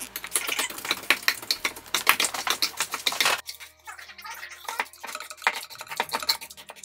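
Wire potato masher mashing guacamole in a stainless steel bowl: rapid clinks of metal on metal and squishing of the mix, thick and fast for about the first three seconds, then slower, sparser strokes.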